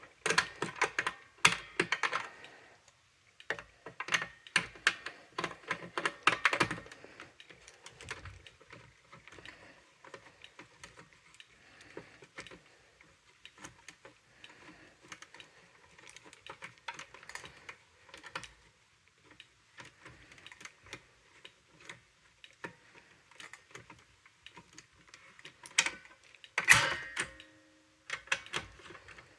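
Clicking and rattling of a Notifier NBG-10 manual fire alarm pull station being handled. The clicks come in dense runs over the first seven seconds, thin out to faint scattered ticks, and there is a louder clatter about 27 seconds in.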